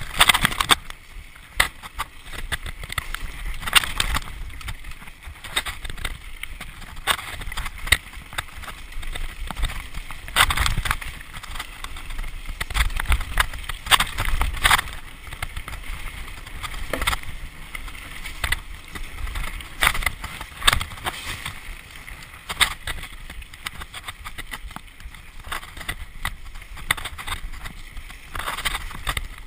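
Mountain bike being ridden fast down a rough dirt singletrack: a steady rumble of tyres on the ground with frequent irregular knocks and clatters as the wheels hit rocks and roots and the bike rattles.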